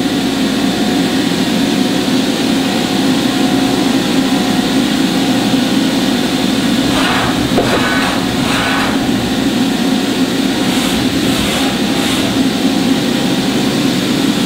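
Toyoda CNC horizontal machining center running with a steady, even hum, which the operator finds remarkably quiet and smooth. A few brief higher-pitched noises come about seven seconds in and again near eleven seconds.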